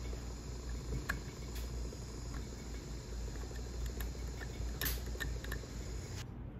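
Light clicks and scrapes of a flat steel hand graver cutting the gold around pavé-set diamonds. They sit over a steady low hum and a high hiss that stops near the end.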